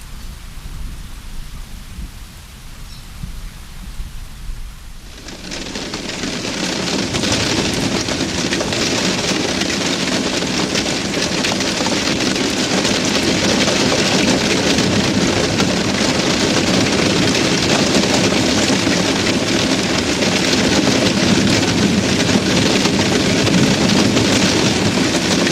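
A low rumble like distant thunder, then about five seconds in heavy rain sets in. The dense hiss of the downpour builds over several seconds and then falls steadily.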